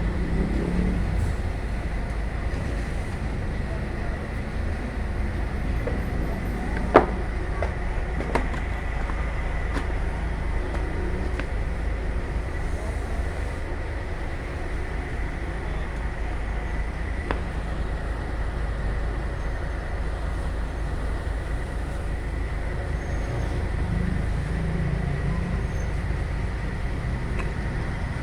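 Heavy diesel construction machinery, a concrete mixer truck and concrete pump, running steadily through a concrete pour, with a faint steady high whine. A sharp knock about seven seconds in, with a few lighter clicks.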